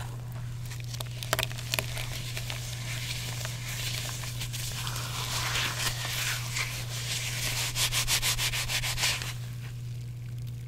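Water-soaked gym chalk being crumbled and crushed by hand: a few crisp clicks, then a gritty crunching and rubbing that builds into a rapid crackle and stops about nine seconds in. A steady low hum runs underneath.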